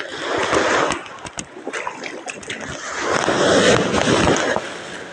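Water splashing and washing in the shallows in two surges: one at the start and a longer one from about three seconds in, with a few short clicks between.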